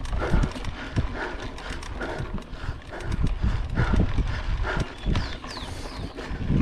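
Mountain bike rattling over a rough dirt trail: irregular knocks and clatter, with wind rumbling on the microphone.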